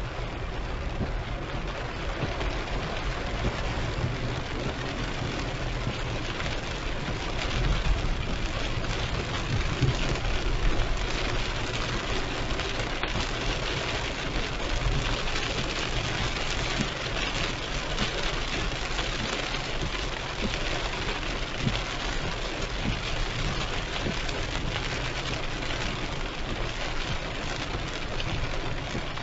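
Heavy rain pelting a moving car in a downpour, a steady hiss with a low rumble of the car underneath. The rain grows a little stronger around the middle.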